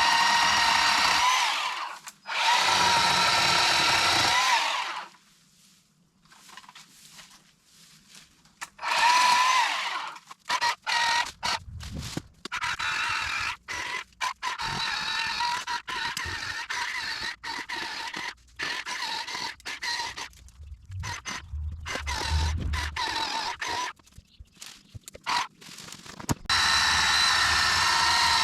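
Bauer electric chainsaw cutting box elder trees, its motor whining in many starts and stops as the trigger is pulled and released. There are a few longer runs of several seconds, and a quick series of short bursts in the middle.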